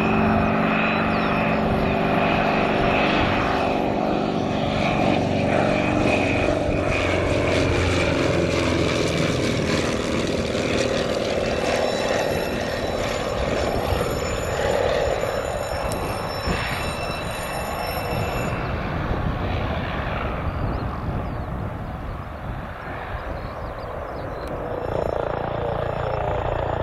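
Single-engine aerobatic propeller plane flying past low, its engine and propeller note falling in pitch as it goes by. Near the end a helicopter's engine and rotor take over.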